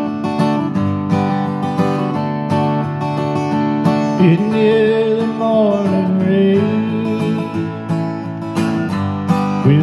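Orangewood Echo acoustic guitar strummed in a steady country-folk rhythm. A man's voice comes in singing about four seconds in, over the chords.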